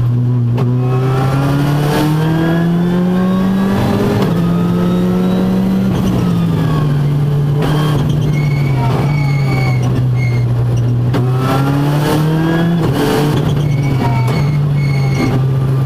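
Ford Fiesta R5+ rally car's turbocharged four-cylinder engine heard from inside the cabin, pulling hard with the revs climbing and then dropping sharply at gear changes. It eases off for a few seconds before climbing again, with sharp knocks here and there.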